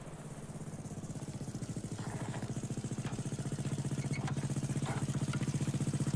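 Motorcycle engine running with a fast, even beat, growing steadily louder as it draws near.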